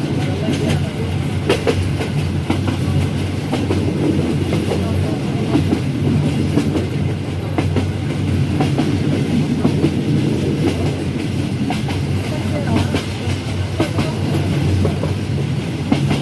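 Passenger train running, a steady rumble with irregular clacks of the wheels over the rail joints.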